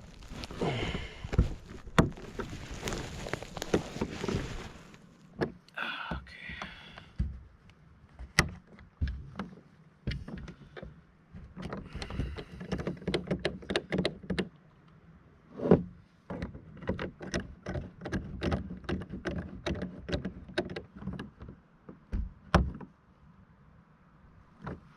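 Scattered clicks, knocks and thunks of rod holders being handled and repositioned on a plastic angling kayak, with a rushing noise for the first few seconds.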